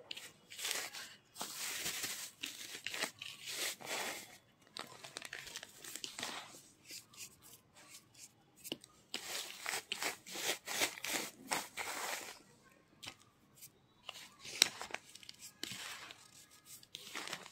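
A hand squeezing and crumbling naphthalene powder in a bowl: irregular crunching, crinkly scrunches in bursts, with short pauses between handfuls and one sharp click about three-quarters of the way through.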